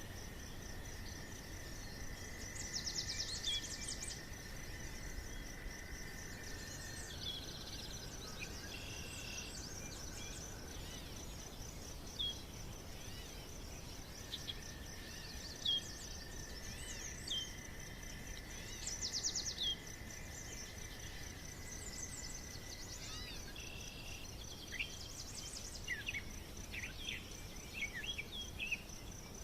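Birds chirping and calling over a steady high, pulsing insect trill, with long level whistles in two stretches and a flurry of quick chirps near the end.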